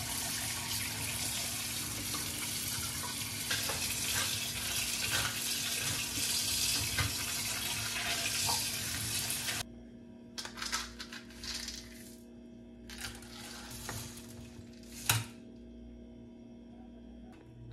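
Water running from a tap into a sink, stopping abruptly about ten seconds in; a few brief clatters follow.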